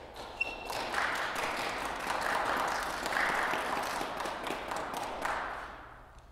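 Audience applauding, the clapping building within the first second and fading away near the end.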